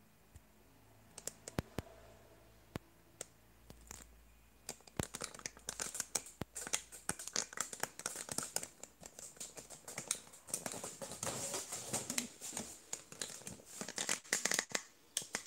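Handling noise: a few separate clicks and taps, then from about five seconds in, dense crinkling and rustling of packaging being handled close to the microphone.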